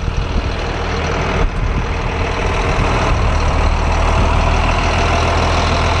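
Caterpillar C7 7.2-litre turbo diesel of a 2006 Blue Bird All American school bus idling with a steady, even low rumble. A single light knock about one and a half seconds in.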